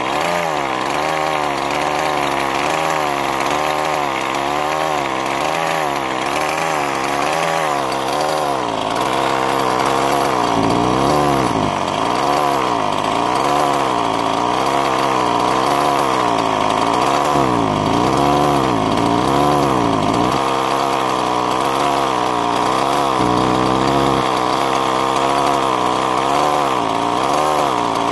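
Two-stroke gasoline engine of a Losi MTXL RC monster truck idling during break-in heat cycles, its speed rising and falling about once a second. A steady hiss sits over the engine for the first eight seconds or so, then fades.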